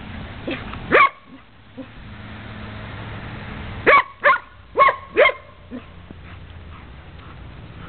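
Dog barking: one loud bark about a second in, then four quick barks in a row a few seconds later.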